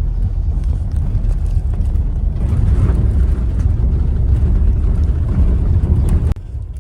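Steady low rumbling noise of a moving bus, louder about halfway through, cutting off abruptly near the end.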